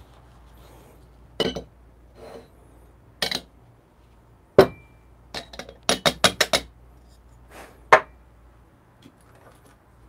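Metal clinks and knocks from an espresso portafilter set in its stand and a steel dosing cup upended on the dosing funnel. A single sharp knock with a short ring comes about halfway, and a quick run of about six light taps knocks the ground coffee out of the cup into the basket.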